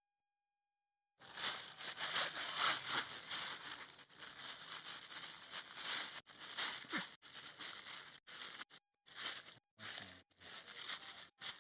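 Plastic grow bag of hardwood sawdust substrate being handled, crinkling and rustling in stops and starts as it is opened, filled with spawn and closed.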